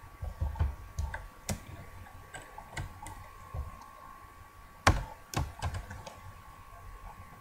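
Typing on a computer keyboard: irregular keystrokes, with one louder click about five seconds in.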